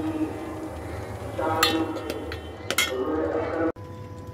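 Kitchenware clinking while ingredients and dishes are handled: a few sharp, ringing clinks, one about one and a half seconds in and a pair about a second later. Near the end the sound cuts off abruptly to a steady hum.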